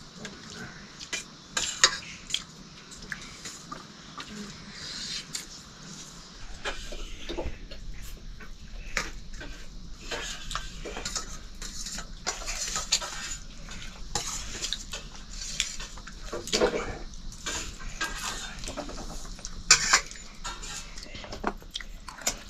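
Metal spoons and forks clinking and scraping on stainless steel plates during a meal, in irregular clicks.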